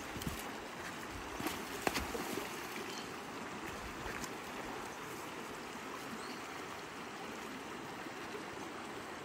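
Shallow river running over stones: a steady rush of flowing water, with a few sharp clicks about one and a half to two seconds in.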